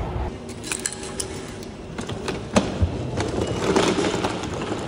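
Station automatic ticket gate taking a paper ticket: a few sharp mechanical clicks, then a louder clack about two and a half seconds in, over the hum of station noise.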